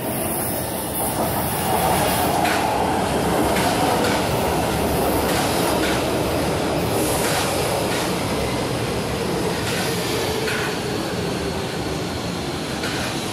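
Metro train pulling into an elevated station and running past close by: a steady rumble of steel wheels on rail, with occasional sharp clacks as the wheels cross rail joints.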